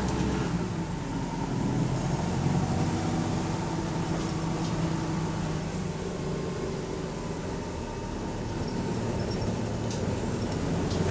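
Bus engine running steadily, heard from on board, its low note holding with only a slight change in pitch about half a second in. The recorder describes the engine as idling high with a slight exhaust leak.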